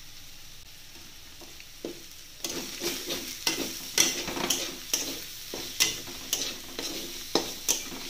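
Garlic and greens sizzling in oil in a metal kadhai. About two and a half seconds in, a metal spatula starts stirring and tossing chopped amaranth greens, clicking and scraping against the pan over a louder sizzle.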